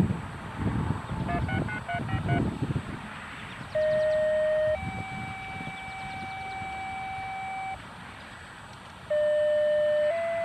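Radio signalling tones: a quick string of paired touch-tone style beeps, then two-tone sequential pages. Each page is a loud steady one-second tone that switches straight to a longer steady tone at a different pitch, and the pattern comes twice. This is the kind of radio tone sequence that sets off outdoor warning sirens for a test.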